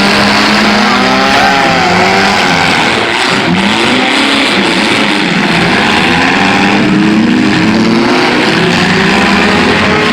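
Several demolition derby car engines revving hard at once, their pitches rising and falling over one another above a dense, loud rumble of the field of cars.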